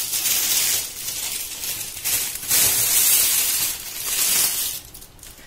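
Crinkling and rustling handling noise in several uneven bursts, dying away near the end.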